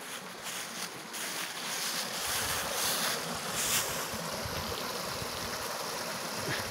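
Small mountain stream rushing and splashing over rocks, a steady hiss that swells about two seconds in as the cascade comes close, with wind buffeting the microphone underneath.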